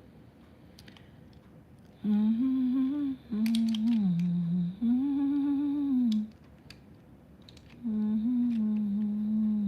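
A woman humming a tune with her mouth closed, in held phrases that rise and fall a little; it starts about two seconds in, breaks off for a moment, then picks up again near the end. A few light clicks sound faintly alongside.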